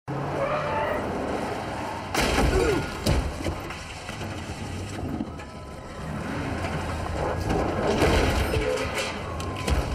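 Film soundtrack of a car crash: a sedan colliding, with loud smashing impacts about two and three seconds in and more crashing noise later on.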